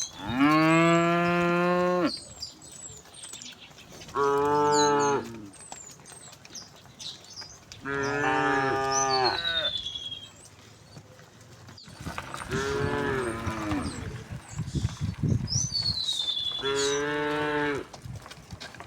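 Cows mooing: five long, loud moos a few seconds apart, each lasting one to two seconds, with birds chirping faintly in between.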